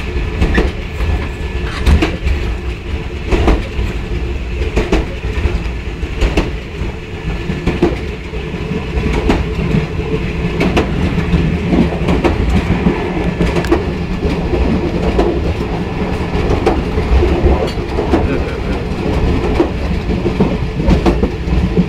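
A passenger train running on metre-gauge track, heard from on board: a steady low rumble with irregular clicks of the wheels over rail joints.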